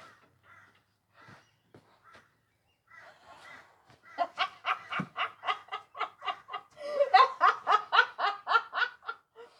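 A person laughing in a long run of rapid ha-ha pulses, about four or five a second, growing stronger in the second half after a few faint breathy sounds.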